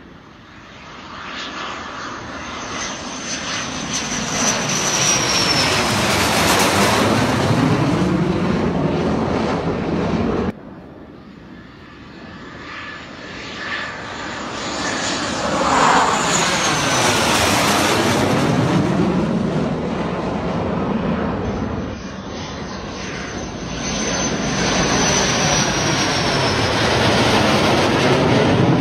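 Fighter jets passing low overhead, three separate passes, the last a Saab JAS 39 Gripen. Each time the jet engine noise swells to a loud roar, with a high whine that falls in pitch as the jet goes by. The sound breaks off abruptly between passes, about ten seconds in and again about twenty-two seconds in.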